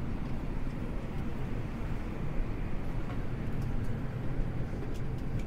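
Steady low rumble and hiss of an Airbus A320 cabin during boarding, from its air-conditioning and aircraft systems, with a few faint clicks.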